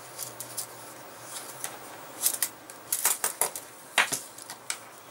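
Handling of a thick leather knife sheath and its dangler strap on a wooden tabletop: scattered rustles and sharp little clicks as the straps are worked loose, pulled free and set down.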